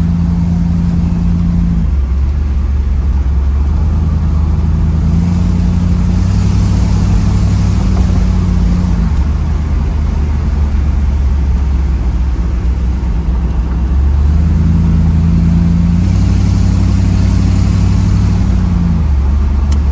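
1992 Chevrolet Camaro Z28's V8 engine and exhaust heard from inside the cabin while driving, over road noise, its note stepping up and down a few times as speed changes. It is running much better on a new distributor cap, rotor, ignition coil and ignition module, though the owner says the car still has an exhaust leak.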